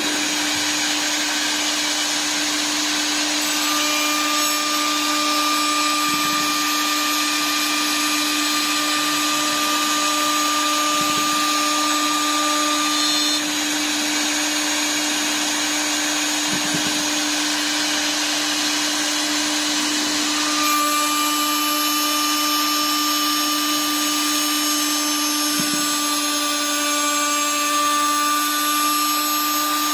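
High-speed electric router spindle on a CNC wood lathe running at constant speed: a steady whine with a hiss over it, unchanged throughout.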